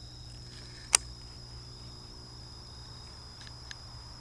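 Steady high-pitched trilling of crickets over a low outdoor hum, with one sharp click about a second in and a fainter click near the end.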